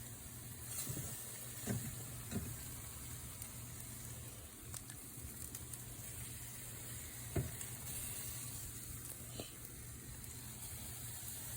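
Pig tails sizzling on a barbecue grill: a steady hiss with a few scattered pops, over a low steady hum.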